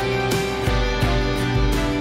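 Background music led by plucked guitar, with a steady bass beat.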